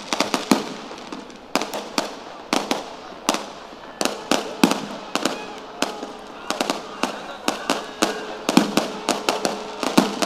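Fireworks and firecrackers going off in a rapid, irregular string of sharp bangs, about two to four a second.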